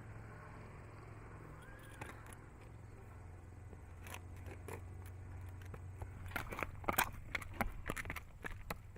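Thoroughbred stallion's hooves striking hard ground, a few scattered steps about four seconds in that come faster near the end, over a steady low hum.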